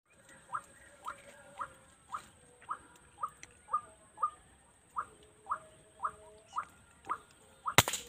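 White-breasted waterhen giving a steady series of short 'kru-ak' calls, about two a second, then a single sharp shot near the end.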